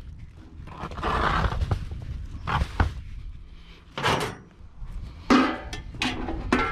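Rummaging through a pile of household junk: rustling of plastic bags and cloth, with several sharp knocks and thunks as hard items are shifted and picked up.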